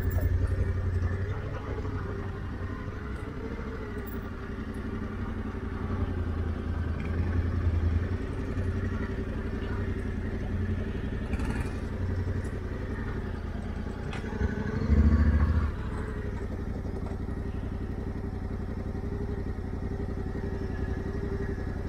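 Motorcycle engine running at a steady speed while riding, with a brief louder surge about fifteen seconds in.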